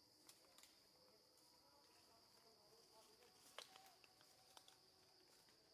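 Faint, steady high-pitched drone of insects in the forest, with a few faint sharp clicks, the loudest about halfway through.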